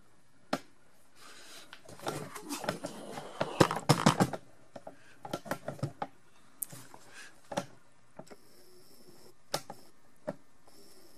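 Scattered light clicks and taps with rustling handling noise between them, coming in short clusters a few seconds apart.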